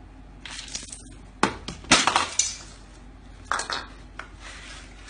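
A painted clay piggy bank being hacked open with a long knife: a series of sharp cracks and breaking smashes as the shell gives way, the loudest about two seconds in and another burst about three and a half seconds in.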